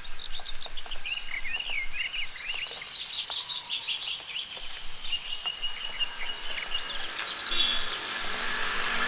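Several wild birds calling at once, a busy mix of quick chirps and twittering. Wavy whistled notes come a second or two in, and a long steady whistle is held for about two seconds in the middle.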